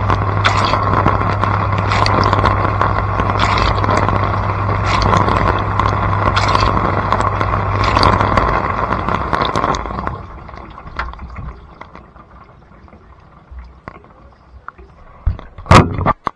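Blanco dishwasher running: the wash pump hums while water sprays from the spinning spray arms, with a swish about every second and a half. The pump and spray stop about ten seconds in, leaving light clicks, then a few loud knocks near the end.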